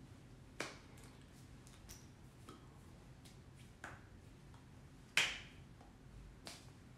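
Hands striking and tapping together while signing in ASL: a few sharp claps and taps, the loudest about five seconds in, over a faint room hum.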